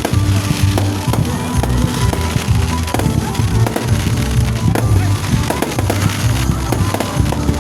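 Fireworks going off, with many sharp bangs and crackles, over loud music with a heavy bass beat.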